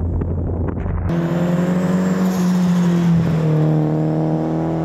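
Nissan 240SX's swapped SR20DET turbocharged inline-four running as the car drives. About a second in, a low rumble gives way abruptly to a clear, steady engine note, which dips slightly in pitch just past the middle and then holds.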